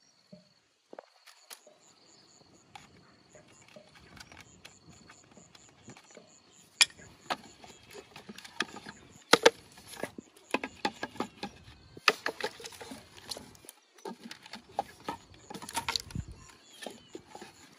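Irregular knocks, clicks and rustles of bamboo tubes and dry bamboo scraps being handled and knocked against each other. They are sparse at first and become busier and louder from about seven seconds in.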